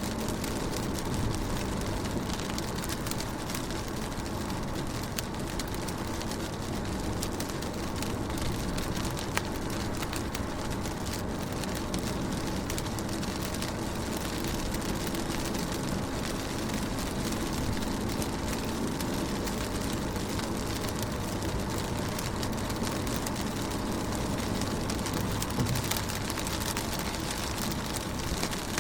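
Steady rain on a car's window and body, many small drops tapping over a constant low rumble.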